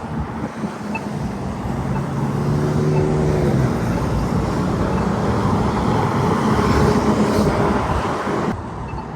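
Road traffic passing through an intersection, with one vehicle's engine hum standing out about three seconds in. Faint ticks from an accessible crosswalk push button sound under it. The traffic noise drops abruptly near the end.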